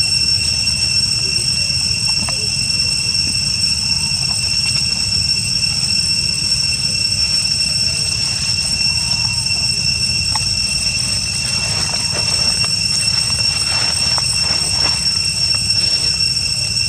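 Steady, high-pitched insect drone with no break, like a cicada chorus, over a low rumble.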